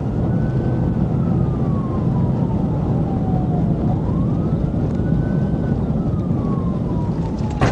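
Police car siren on a slow wail, its pitch rising and falling about every four seconds, over the loud road and engine rumble of the patrol car in pursuit.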